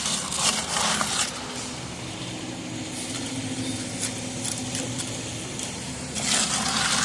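An engine running steadily, with two short bursts of hissing, scraping noise: one at the start and one near the end.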